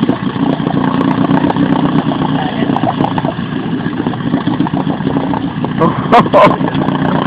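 Small engine running steadily. About six seconds in come two loud, sharp sounds close together.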